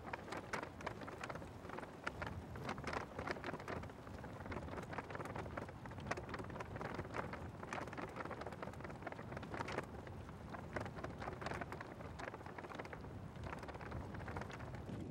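Glacial meltwater trickling down a small channel on the ice: a dense, irregular patter of tiny drips and splashes over a steady low rush.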